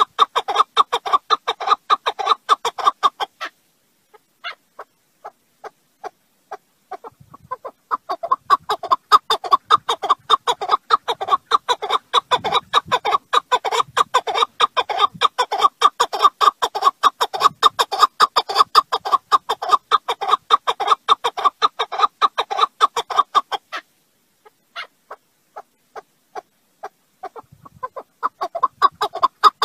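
Partridge (keklik) giving rapid, rhythmic chuckling calls in long bouts. The calling stops twice for a few seconds, leaving only a few scattered notes, then starts again.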